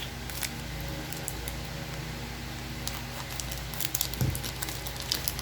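Trading cards being handled and sorted: scattered light clicks and rustles of card stock sliding against card stock, over a steady low background hum, with one soft thump about four seconds in.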